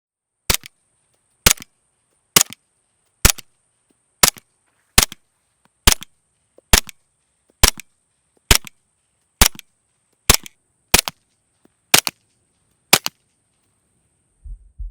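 Suppressed gunshots, about fourteen single shots at a steady pace of roughly one a second, each followed by a short fainter tap.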